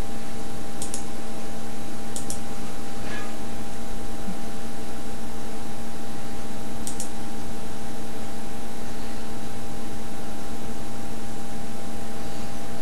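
Steady hum and hiss from a running machine or fan, with a few faint ticks early on.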